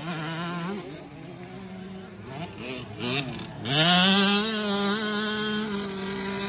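Dirt bike engine revving. It wavers at lower revs, then rises sharply in pitch a little past halfway and holds high and steady.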